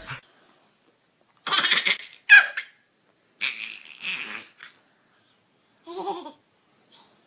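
A baby giggling in short, breathy bursts, starting about a second and a half in. The sharpest burst comes just after two seconds, and a squealing laugh comes about six seconds in.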